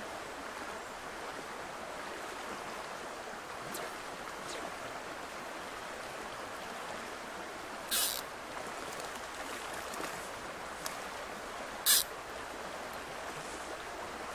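Steady rush of a shallow river's riffles. Twice, about four seconds apart, a short sharp swish breaks over it as the fly line is ripped off the water surface when the rod is lifted to cast.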